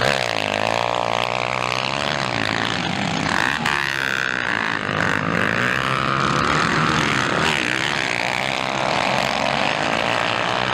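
Motocross bike engines revving hard, pitch rising and falling as the riders accelerate and shift through the turns, with more than one bike heard at once.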